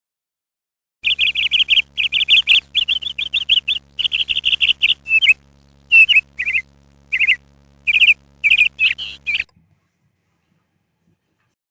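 A small bird chirping in quick runs of high, sharp notes, then in single calls spaced apart, with a faint steady hum underneath that stops with the chirps.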